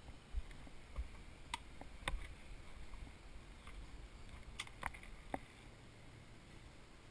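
Faint scattered clicks and light knocks from handling: a rider settling onto a quad and reaching down to the controls by its engine, picked up by a helmet-mounted camera. The engine is not running.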